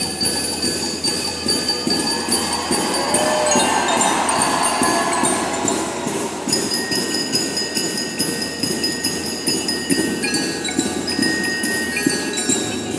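Marching drum band in a soft passage: bell lyres ring out a melody over a steady light percussion beat of about two to three strokes a second.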